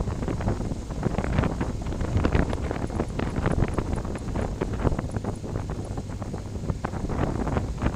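Wind buffeting the microphone of a camera on a moving motorcycle, in irregular gusts, over the low rumble of motorcycle engines.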